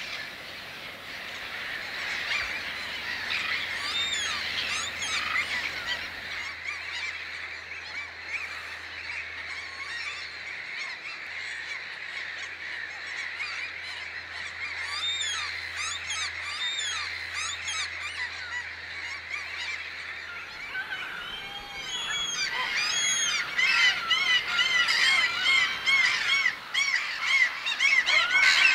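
A large flock of birds calling in a dense chorus of honking calls, growing louder and busier about three quarters of the way through. A steady low hum runs underneath until then.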